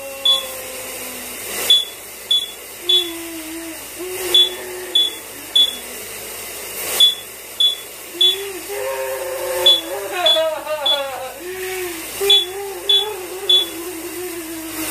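Smoke alarm beeping in its temporal-three pattern: three short, high beeps about half a second apart, then a pause, repeating. A man's voice holds long, wavering tones over it, and running shower water makes a steady hiss underneath.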